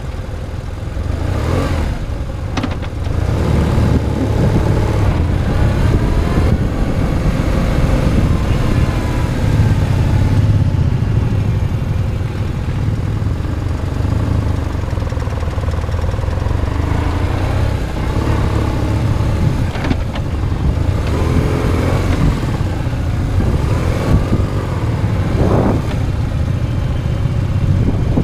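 A motorcycle's engine runs close to the microphone while the bike is ridden at low speed. It keeps up a steady low rumble that builds over the first few seconds, and its pitch rises and falls several times in the second half as the throttle is opened and eased off.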